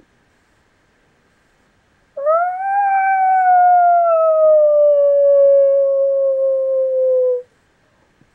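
A single long howl, about five seconds, that starts about two seconds in, rises briefly in pitch, then slowly falls before stopping. It is heard as an animal's howl, a dog or wolf-like call.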